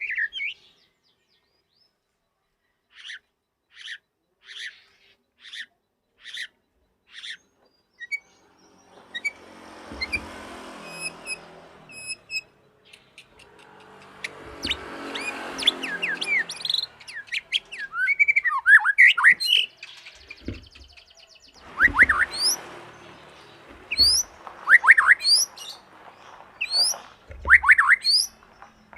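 Young white-rumped shama singing: a row of about seven short, evenly spaced notes, then a harsh, hissing stretch, then a rapid, varied song of sweeping whistles and chirps from about halfway on.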